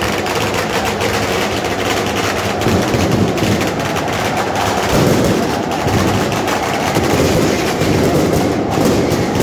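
Loud noise of a large football crowd cheering in the stand, with several sharp bangs of firecrackers going off among it.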